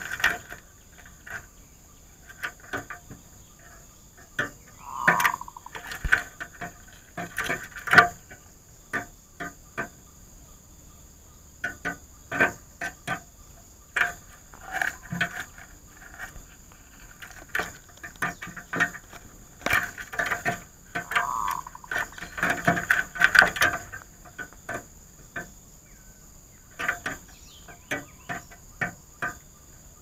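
Zebra dove giving a short call twice, about five seconds in and again about twenty-one seconds in, over frequent irregular clicks and taps.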